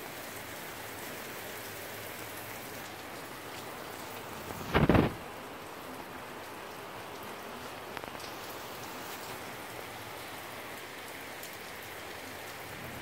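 Steady moderate rain, an even hiss of falling drops, broken by one brief loud low bump about five seconds in.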